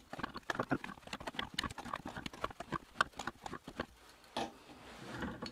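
Steel plumber's pliers twisting a stuck bicycle bottom bracket cone on its axle: a rapid, irregular string of metallic clicks and scrapes as the jaws bite and shift on the cone. The clicking thins out after about four seconds.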